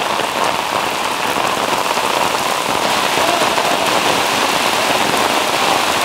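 Heavy rain pouring down onto a flooded street, a steady loud hiss with no let-up.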